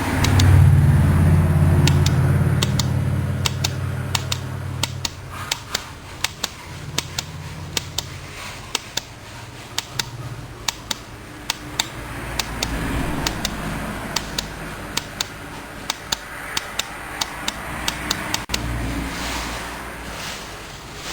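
Sharp clicks of the remote's buttons or switches being pressed, irregular at roughly one or two a second, over a low hum that is loudest in the first few seconds and swells again twice later.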